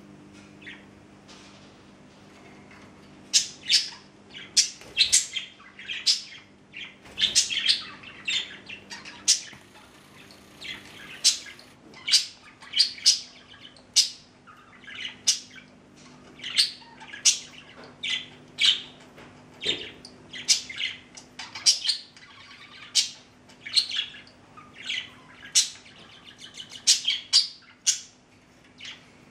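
Pet budgerigars chirping and squawking: a long run of short, sharp, high calls, about one or two a second, beginning a few seconds in.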